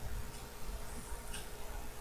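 Faint, evenly spaced ticking about once a second, over a low room rumble.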